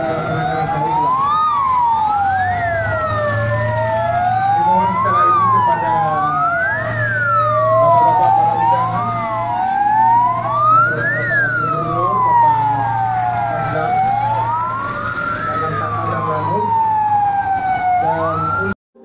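Several fire engine sirens wailing at once, their slow rising and falling sweeps overlapping out of step, over the steady drone of the trucks' engines. The sound cuts off suddenly just before the end.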